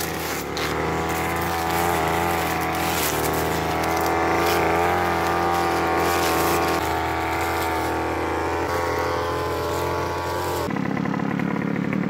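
Backpack two-stroke brush cutter running steadily while cutting weeds, its engine pitch wavering slightly as the line meets the growth. The sound cuts off suddenly near the end.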